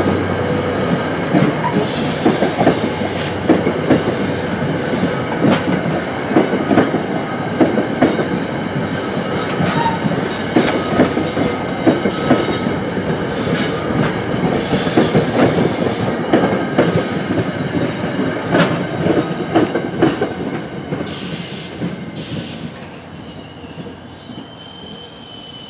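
NJ Transit commuter train's bi-level passenger cars rolling past close by, wheels clicking and clattering over the rail joints with occasional high-pitched wheel squeal. The sound fades over the last several seconds as the train pulls away.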